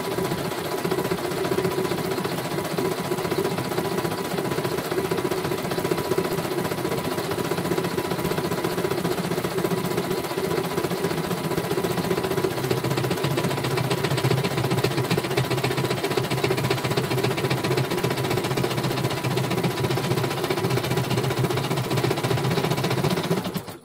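CNY portable computerized embroidery machine stitching a design: the needle hammers rapidly and steadily while the hoop carriage steps the fabric about. It stops near the end.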